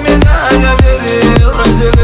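Instrumental break of a pop song with no vocals: a steady beat of deep, booming kick drums under sustained synth chords.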